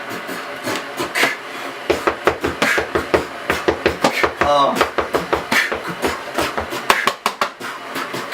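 A fast rhythmic beat of sharp clicks and low thumps starts about two seconds in, with a short wavering sung 'oh' about four and a half seconds in.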